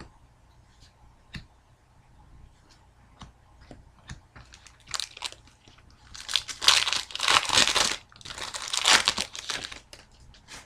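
Crinkling and tearing of a trading-card pack's foil wrapper, in two long loud bursts in the second half, after a few light clicks of cards being handled.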